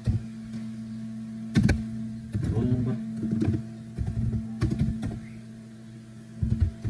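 Computer keyboard being typed on: irregular runs of key clicks with short pauses between them, over a steady low hum.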